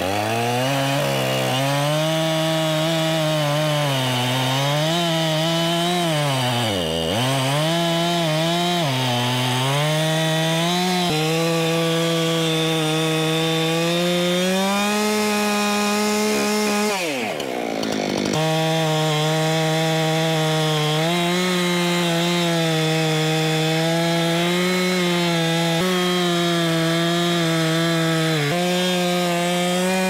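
Husqvarna two-stroke chainsaw running at high revs while cutting through a red oak log. Its engine pitch sags and recovers as the chain loads in the wood, dipping sharply about seven seconds in, with a short break near seventeen seconds before it settles back into a steady cut.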